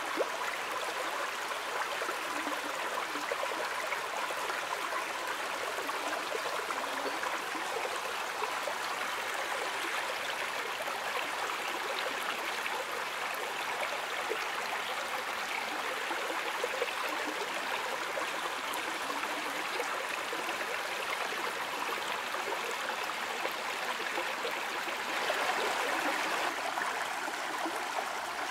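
Small rocky woodland stream babbling steadily over stones, a little louder for a couple of seconds near the end.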